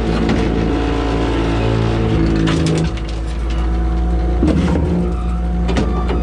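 Concrete pump truck engine running steadily, with several sharp knocks and clanks from work at the hopper grate.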